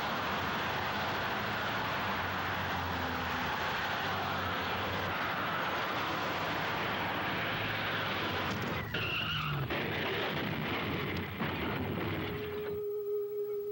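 Steady rushing road noise of cars in traffic, tyres on pavement. Near the end it cuts off sharply and a single held flute note begins.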